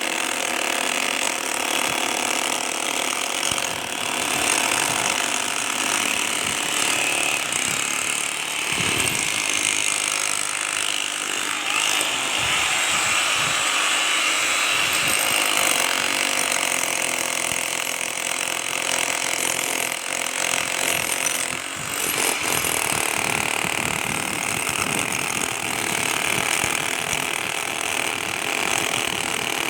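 Power tool working into a reinforced-concrete road surface, running steadily and loudly, with a short dip about two-thirds of the way through.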